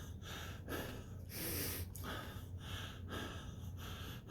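A man breathing in quick, gasping breaths, about seven in a row, the loudest about a second and a half in. It is the breathing of someone in distress and panic.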